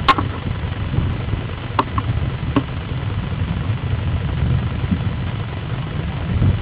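Offshore racing powerboat's engines running with a steady low rumble, with a few sharp clicks, the loudest right at the start.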